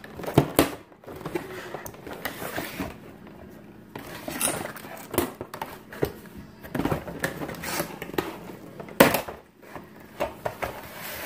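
Cardboard and plastic toy packaging being handled and cut open with scissors: irregular rustling, crinkling and clicks, with a sharp knock about nine seconds in.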